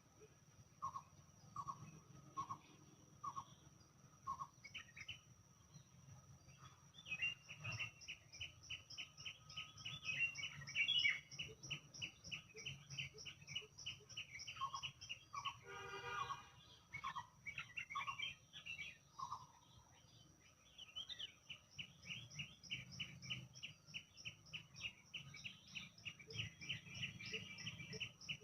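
Several birds singing together: a run of short falling whistled notes near the start and again later, and fast high chirping trills through most of it, over a steady thin high-pitched tone. A brief rich, buzzy call cuts in about halfway through.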